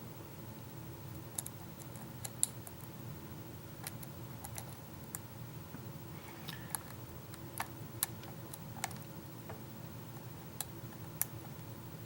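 Irregular small metallic clicks and scrapes of a lock pick working the pins of a pin-tumbler lock under tension, over a steady low hum. The pick feels crunchy in the lock, whose keyway has been brutalized.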